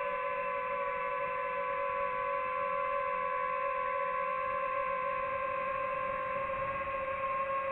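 DJI FPV drone's motors and propellers whining at a steady pitch in flight.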